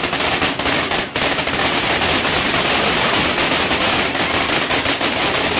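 Ground fountain fireworks (anar) spraying sparks: a steady loud hiss with dense, rapid crackling pops throughout.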